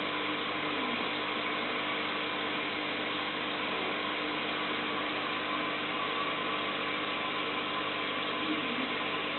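Steady mechanical hum with an even hiss and a few faint constant tones, unchanging throughout.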